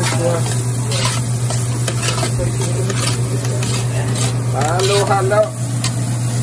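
A metal spoon stirring and scraping through a large aluminium pot of chopped red onions that have just begun to sauté, with a steady sizzle and repeated scrapes against the pot. A steady low hum runs underneath.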